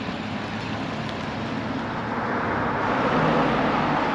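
Road traffic: a vehicle passing on the street, a rush of engine and tyre noise that swells to its loudest about three seconds in.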